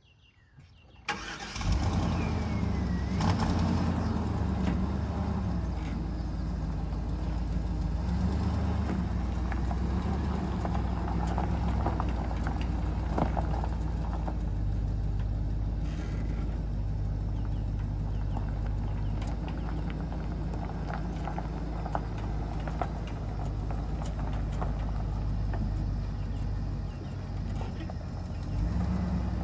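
The 2003 Chevrolet Silverado 2500HD's 6.0-litre Vortec V8 starting about a second in, then running steadily while the truck is driven, a little louder near the end.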